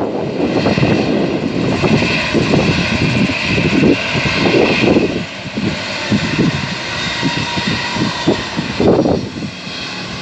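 Airliner's engines running loud with a steady high whine over a low rumble; the whine eases off after about five seconds.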